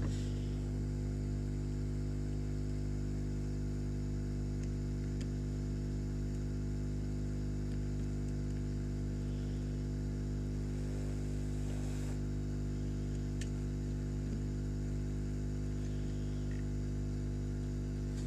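Steady electrical hum made of several evenly spaced tones, with a few faint clicks.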